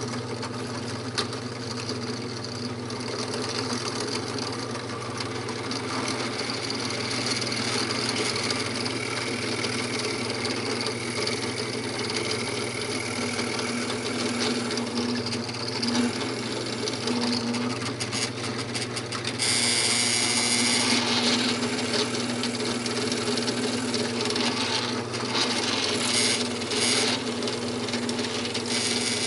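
Drill press running steadily with a motor hum, its bit boring into a plywood clamp jaw and described as a little noisy. Harsher cutting noise comes in about two-thirds through and again near the end.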